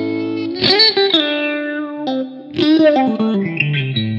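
Electric guitar played clean through an All Pedal Macrodose envelope filter pedal: chords ring out, and on the two hard pick attacks, about half a second in and again near three seconds, the filter sweeps open and shut with a quacky, auto-wah vowel sound.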